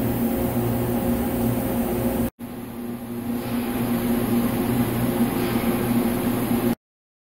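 Steady hum of machinery running in a machine shop. The sound drops out briefly a little over two seconds in and cuts to silence near the end.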